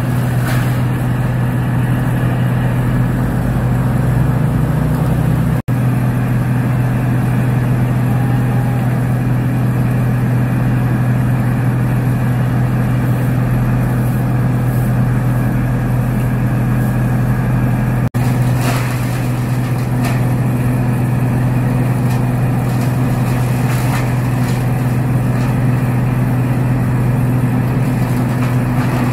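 A heavy truck engine running steadily at one constant speed, giving a loud, even, low drone.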